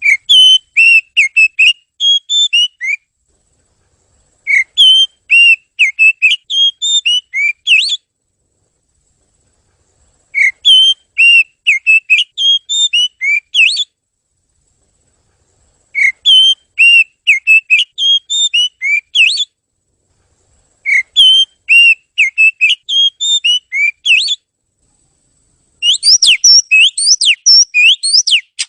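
Oriental magpie-robin (kacer) singing: phrases of loud, clear whistled notes, each about three seconds long, with short pauses between. The last phrase, near the end, has quicker, higher sweeping notes.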